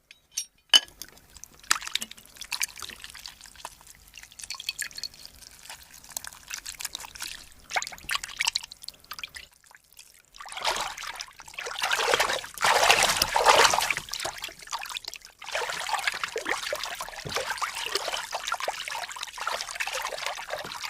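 Wet foley sounds of liquid: a few sharp clicks, then scattered small crackles and drips, swelling about halfway through into a louder trickling rush that settles into a steady trickle.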